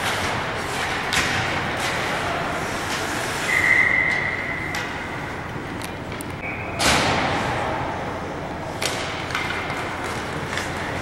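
Ice hockey game sound in an arena: a steady murmur of rink noise with sharp knocks of puck and sticks, the loudest a bang about seven seconds in. A brief steady whistle-like tone sounds a few seconds in.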